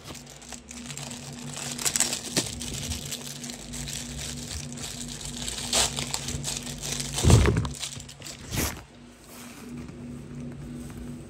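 Plastic packaging crinkling and rustling as it is handled, with two heavier thumps a little past halfway, over a faint steady low hum.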